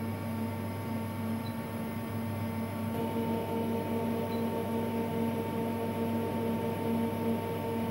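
Brother HS300 wire EDM machine running with a steady electric hum and whine. About three seconds in, a higher pulsing tone comes in as the Y axis drives the wire toward the fixture to touch off its edge.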